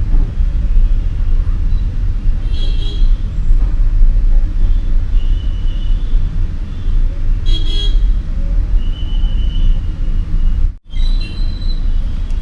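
Steady low rumble of road traffic, with several short, high-pitched toots like vehicle horns scattered through it and a momentary break near the end.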